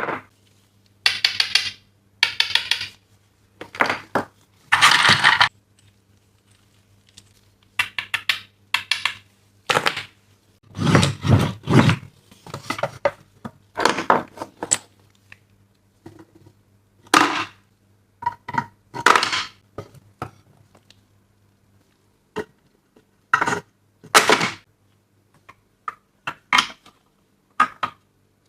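Small plastic toy pieces and packaging being handled: irregular clicks, clatters and crackling rustles, some single taps and some longer bursts, with short pauses between.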